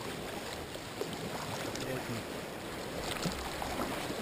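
Kayak paddle blades dipping and splashing in choppy sea water, with water sloshing against the kayak's bow in an even wash of noise broken by small splashes.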